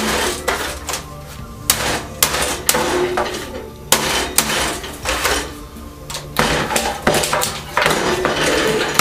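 Background music, with irregular sharp knocks and clattering of hard objects being worked on.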